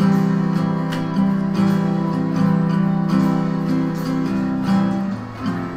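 Acoustic guitar strummed in a steady rhythm, ringing chords with no voice over them; the playing thins out briefly near the end.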